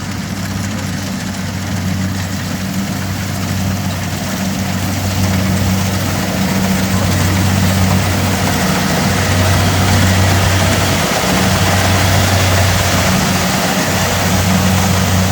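Kubota DC70 Plus combine harvester running steadily: a low engine hum under a broad rushing machine noise, growing louder over the first half.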